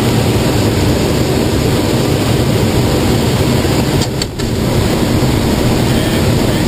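Steady rush of airflow over an engineless glider in flight, buffeting the microphone, with a brief dip in loudness about four seconds in.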